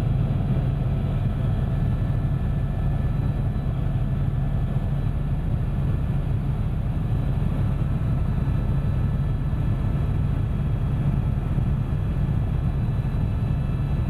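Helicopter cabin noise in flight: a steady, unbroken low drone from the rotor and engine, with faint steady high tones above it.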